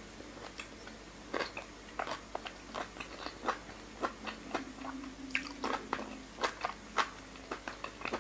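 Close-up wet mouth sounds of eating soy-marinated raw salmon: sucking a long soft strip into the mouth, then smacking and chewing, many short irregular wet clicks.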